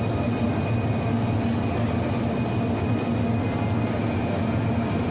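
Steady interior ambience of a large store: a constant low hum under a diffuse wash of background noise, with no distinct events.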